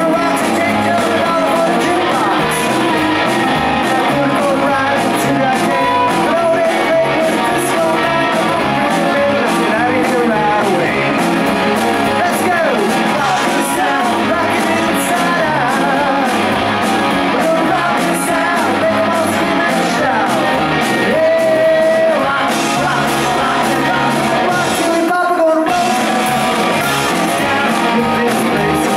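Live rock band playing: electric guitars and drums, with a man singing lead at the microphone. The band stops for a brief break about 25 seconds in, then comes straight back in.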